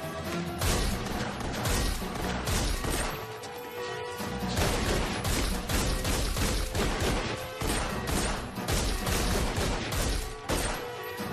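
Pistol gunfire in rapid, repeated volleys, many shots a second, with action-film music underneath.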